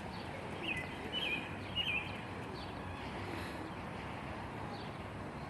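A few short bird chirps, mostly in the first two seconds, with fainter ones later, over steady outdoor background noise.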